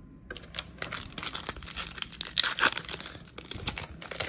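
Foil trading-card pack wrapper being torn open and crinkled in the hands, a dense run of crackling and ripping that starts a moment in.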